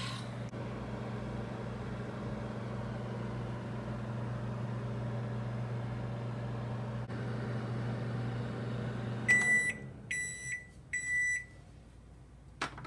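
Microwave oven running with its steady hum. About nine seconds in it stops, and the end-of-cycle alert beeps three times. A sharp click comes near the end.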